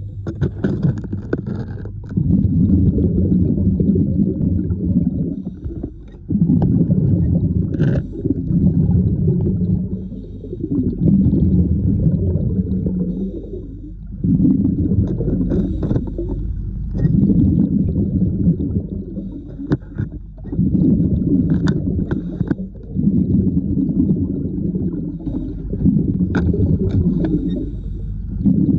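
Muffled low water rumbling that swells and falls back about every three to four seconds.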